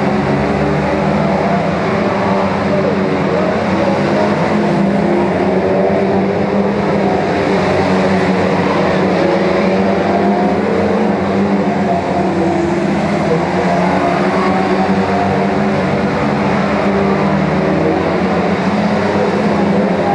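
A pack of saloon stock cars racing, many engines running at once in a loud, steady drone whose pitches rise and fall as the cars accelerate and lift off through the turns.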